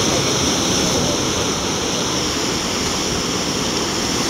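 Rough sea surf breaking and churning as white water in a narrow inlet of volcanic rock: a steady, loud rushing noise.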